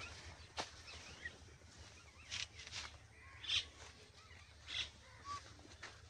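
A few soft, scattered crunches of footsteps on dry leaf litter, with faint bird calls in the background.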